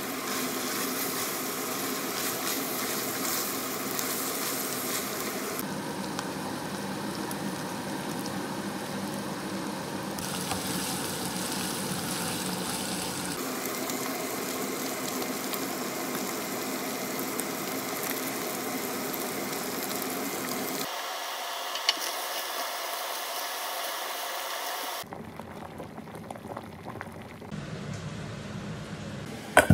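Ground beef and vegetables frying in a pan: a steady sizzle with a faint steady hum beneath, changing abruptly at several cuts and dropping quieter for the last few seconds.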